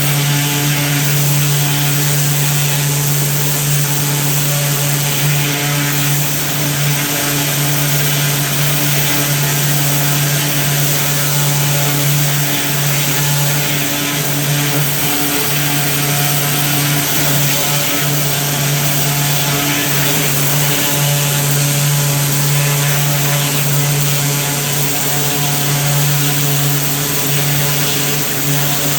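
Small gasoline engine running at a steady high speed under a continuous hiss, with no change in pitch or load.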